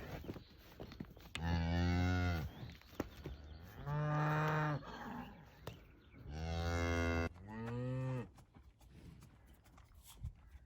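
Cattle mooing four times, low drawn-out calls of about a second each, the last two close together.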